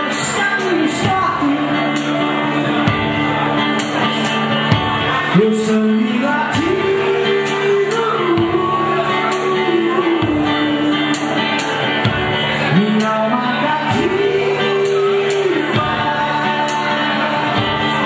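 Live band playing a laid-back, largely acoustic song: a singer holding long notes over guitar, drums and regular cymbal hits.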